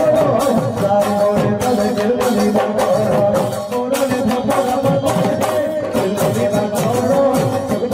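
Live Assamese folk dance music: barrel-shaped dhol drums beaten in a fast, steady rhythm, with a man singing over them.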